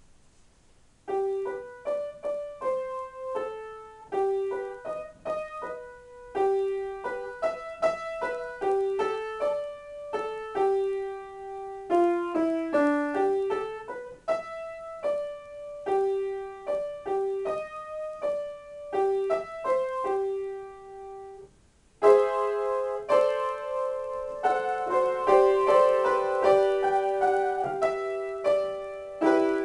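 Solo acoustic piano improvisation. After a second of near silence, a single line of separate notes in the middle register starts. It breaks off briefly about two-thirds of the way through, then comes back louder with fuller chords.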